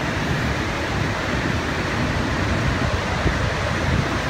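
Niagara's Horseshoe Falls: a steady, loud rush of water pouring over the brink, with a rumbling low end.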